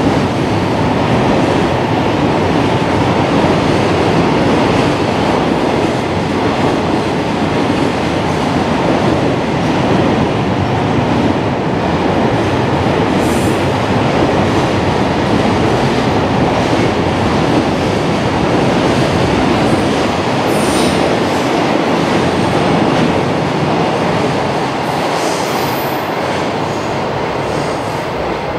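Long freight train of container wagons rolling past: a steady loud rumble of steel wheels on rail, with brief high wheel squeals a few times, easing off near the end as the train draws away.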